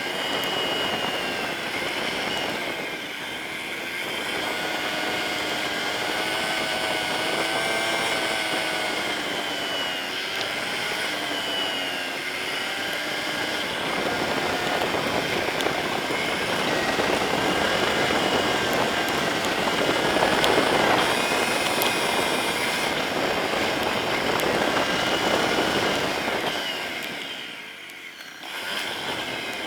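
Yamaha Serow 250's air-cooled single-cylinder engine under way, its pitch rising and falling with the throttle, over a rushing wind and road noise that grows louder in the second half. Both drop away briefly near the end.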